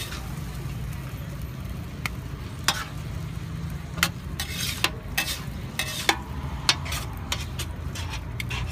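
Metal ladle and spatula stirring and tossing noodles in a large shallow steel pan, sharp clinks and scrapes against the pan at irregular intervals with a hiss of frying, over a steady low hum.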